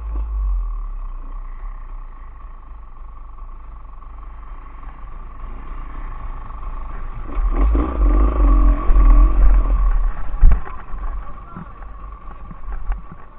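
Enduro motorcycle engine running on a rough mule track, with a heavy low rumble. It gets louder about seven and a half seconds in and drops back after a sharp knock about ten and a half seconds in.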